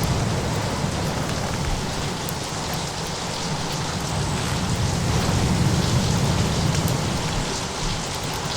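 Steady hiss of heavy rain with slow, low rumbles of distant thunder swelling and fading, and scattered faint crackles like a wood fire.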